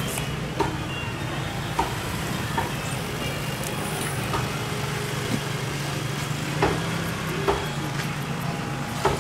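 Fish knife knocking sharply on a wooden chopping block about seven times, at uneven intervals, during filleting, over a steady low background rumble.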